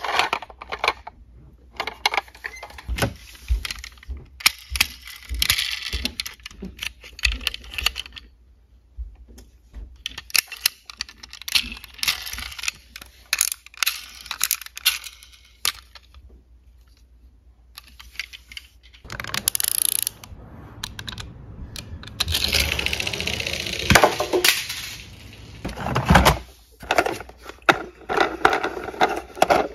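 Toy cars, diecast and plastic, clicking and clattering against each other as they are picked out of a cardboard box and handled, with louder stretches of scraping and rustling in the last third.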